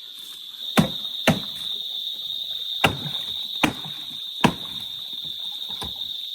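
Six sharp knocks at uneven intervals, the first few loudest, over a steady high-pitched chirring of insects, likely crickets.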